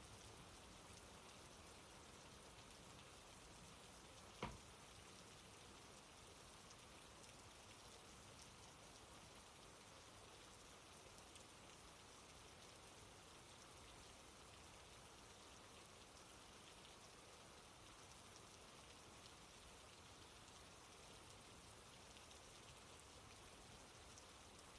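Near silence: a faint, steady hiss, with a single click about four and a half seconds in.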